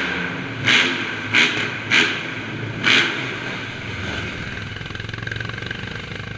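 An engine running steadily, with four short loud bursts in the first three seconds, then settling to an even run.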